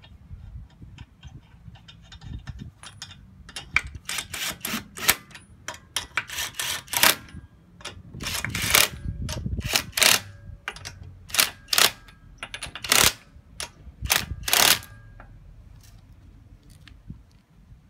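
Cordless impact wrench hammering the wheel lug nuts down, in a series of short bursts as it goes from nut to nut, with lighter clicks before the first burst.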